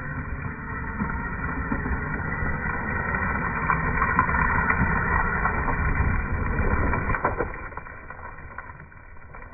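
Losi Baja Rey radio-controlled desert truck running, heard in slowed-down audio: a low rumble that swells over the first several seconds and fades after about seven seconds.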